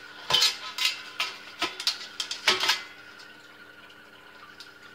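Parts of a NuWave Pro Plus countertop oven knocking and clattering together as they are handled and unpacked: a quick run of sharp knocks in the first three seconds, then only a faint steady hum.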